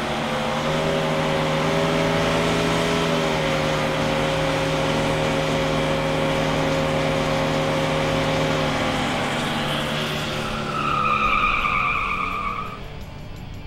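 Engine of a 1969 Yenko Nova, a 427 big-block V8, held at high, steady revs during a burnout while its rear tyres spin and smoke. The revs drop off about nine seconds in. A short high tyre squeal comes near the end as the car pulls away.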